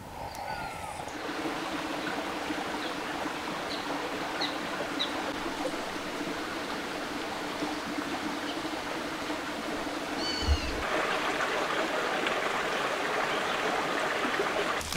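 Forest ambience: a steady rushing background noise with a few short, high bird chirps scattered through it. About ten seconds in there is a quick run of chirps and a soft low thump, and the rushing turns a little brighter after them.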